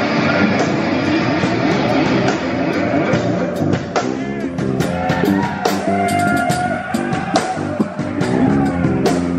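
Heavy metal band playing live and loud: distorted electric guitars and bass over a drum kit, with drum and cymbal hits cutting in sharply from about four seconds in under a held, bending guitar note.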